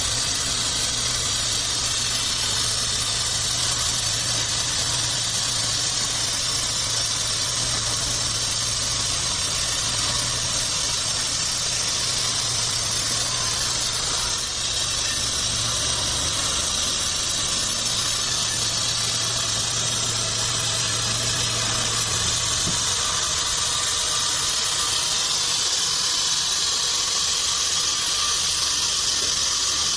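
Home-built band sawmill cutting a trembesi log: a steady high hiss of the blade in the wood over a low machine hum. The hum drops away about two-thirds of the way through while the hiss carries on.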